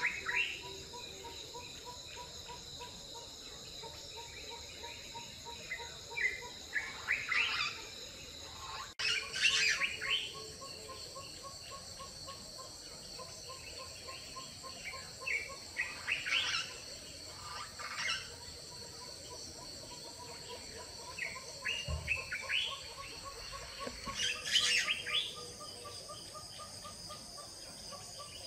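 Small birds chirping in short bursts every few seconds over a steady high-pitched insect chorus, with a steady pulsing trill underneath.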